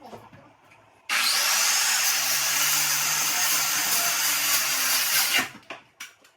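A power tool running in one burst of about four seconds, starting and stopping abruptly, with a faint whine that rises as it spins up.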